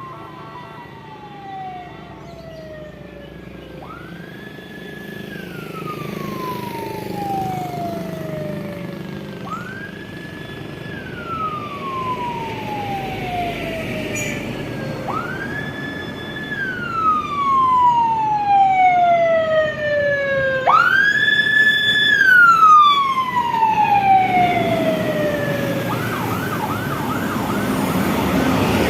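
Siren of a convoy escort vehicle wailing: each cycle jumps up, holds briefly, then falls slowly, repeating about every five seconds and growing louder as it approaches, switching to a rapid yelp near the end. Traffic noise runs underneath.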